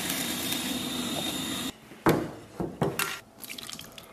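A pot of boiling water giving a steady bubbling hiss while cooked noodles are lifted out; it cuts off after about a second and a half. Then come a few short, sharp knocks of a ladle against a stainless steel basin.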